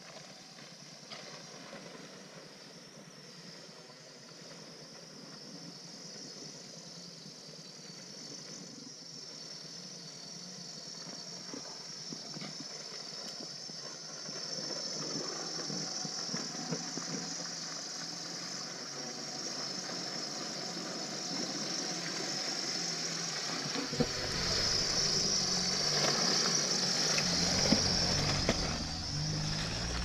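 Chevrolet Niva's four-cylinder engine running as the SUV drives along a flooded forest track, growing steadily louder as it approaches, with a deep engine rumble coming in near the end as it draws close.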